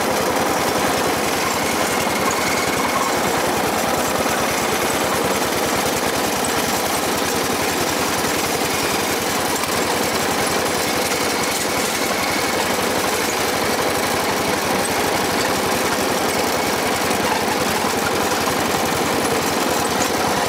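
Riding lawn mower engine running steadily as the mower is driven.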